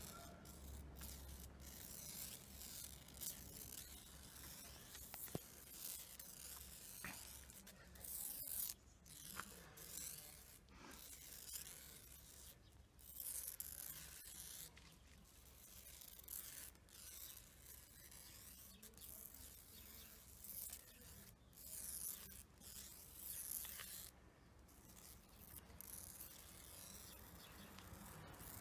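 Faint, irregular rustling and scraping in short bursts, over a low steady hum.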